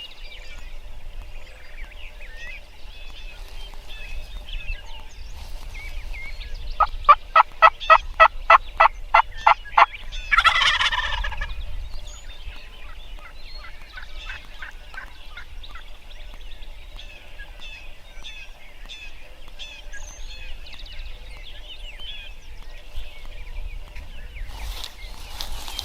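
Wild turkey gobbling: a rapid run of about a dozen loud, evenly spaced notes, then a full gobble, with fainter repeated notes a few seconds later. Small birds chirp throughout.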